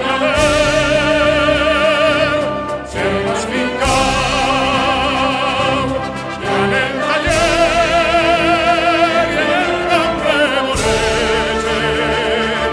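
Operatic singing: a high solo voice holding long notes with a wide vibrato over orchestral backing, in several long phrases.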